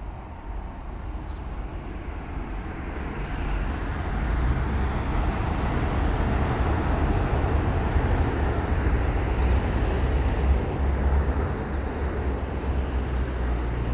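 Hello Kitty Shinkansen, a 500-series high-speed train, passing at speed on an elevated viaduct: a dense rush of noise that builds over the first few seconds and then holds steady.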